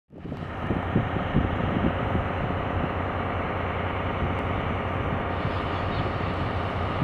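MÁV class M41 diesel-hydraulic locomotive's engine running steadily as it pulls a passenger train away from the station.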